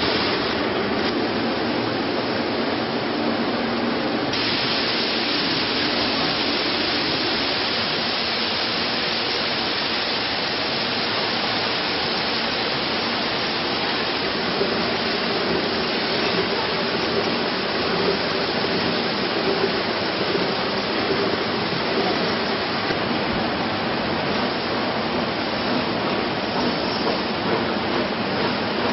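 Potato washing machine running with water spraying: a steady rushing hiss that gets brighter about four seconds in.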